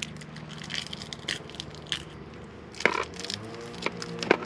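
Small metal clicks and rattles of screws and a hard drive being handled against a DVR's metal case, the loudest about three seconds in and near the end, with faint music underneath.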